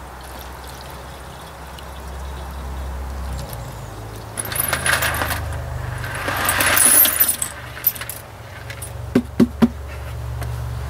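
Fuel-tank flush fluid and debris poured from a pail through a paint filter in two spells, then a few sharp clicks near the end, over a steady low hum.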